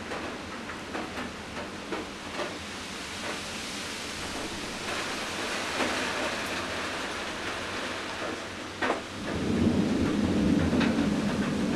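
A steady hiss with scattered light ticks, joined about nine seconds in by a louder, sustained low rumble.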